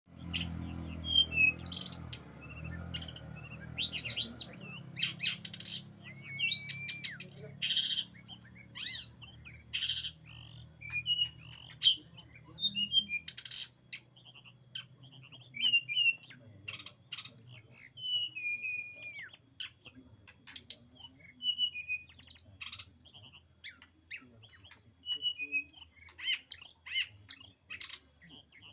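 Brown-chested jungle flycatcher (sikatan rimba dada coklat) singing a fast, varied song of short high chirps and whistled notes, with hardly a break. A low hum runs under the first dozen seconds or so.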